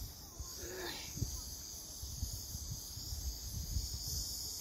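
Outdoor mountain-camp ambience: a steady high-pitched hiss or chirring, with wind rumbling on the microphone and a short call about a second in.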